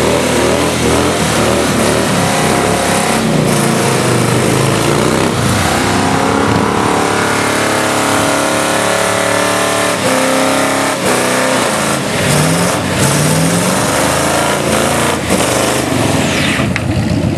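Engines revving hard through tyre burnouts, with the noise of spinning tyres on asphalt: first a cruiser motorcycle, then a car. The engine pitch rises and falls several times.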